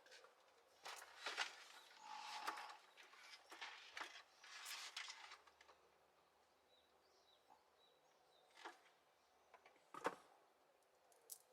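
Near silence: quiet ambience with scattered faint rustles and knocks, the sharpest about ten seconds in, and a few faint short high chirps around the middle.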